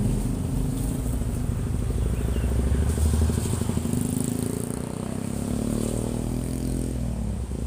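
A passing motor vehicle's engine running steadily, its pitch rising as it speeds up, then fading away about seven seconds in.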